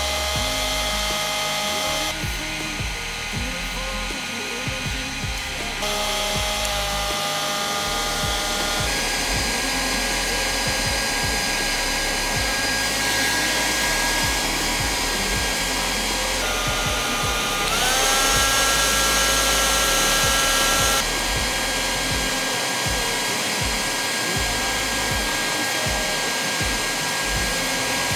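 Panasonic hair dryer running with a steady whir. Its pitch and level step up or down several times, and about two-thirds of the way through a rising whine marks the motor speeding up.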